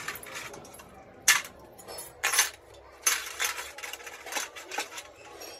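Metal turbocharger parts clinking and clanking against a metal wash basin as they are handled. Three sharp clanks come about a second apart in the first half, followed by lighter clinks.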